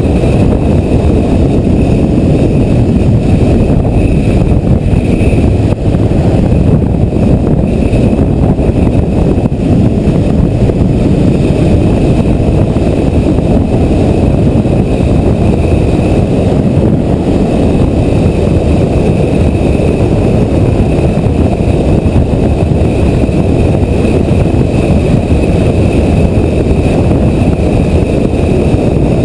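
Kawasaki motorcycle under way, heard as a steady, dull rumble of engine and wind through a helmet-mounted action camera, with a faint steady whine above it.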